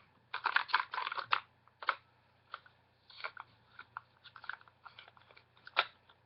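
Batteries being fitted into a plastic battery compartment by hand: irregular clicks and small rattles, a dense cluster in the first second or so, then scattered clicks and one sharp click near the end.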